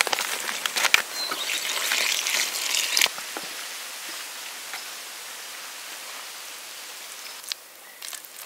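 Gloved hands mixing wet wood shavings and a white binder in a plastic bucket: crackly rustling with a couple of sharp knocks about one and three seconds in, then a quieter steady hiss.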